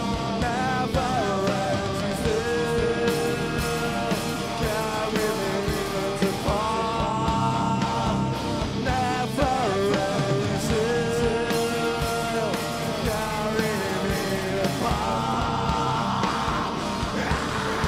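Live post-metal rock band playing electric guitars, bass and drums, with sustained melodic lines that slide in pitch. A brighter, denser guitar wash builds near the end.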